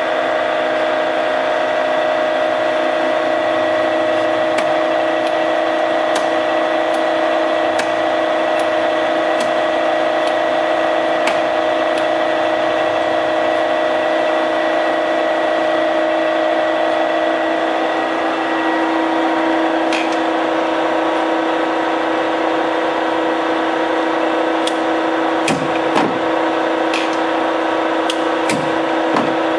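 Warner & Swasey No. 3 ram-type turret lathe running under power with a steady motor hum and whine, whose tone shifts about two-thirds of the way through. Scattered clicks and a run of clunks near the end come from the slide handwheels and levers being worked.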